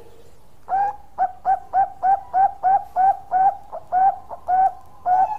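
Zebra dove (perkutut, Bangkok type) singing its long cooing song. It starts about a second in: a quick run of short, rising-then-falling coo notes repeated about four times a second.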